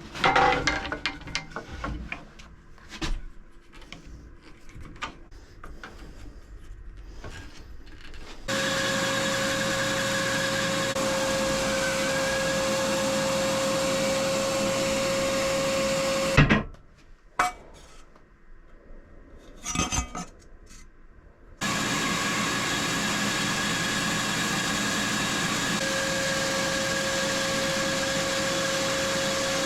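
Wood and tools being handled with scattered knocks and clatter. About eight seconds in, a workshop machine starts running with a steady hiss and a constant high whine. It cuts off with a loud knock about halfway through, and after a few quieter clicks it starts running again at the same steady level.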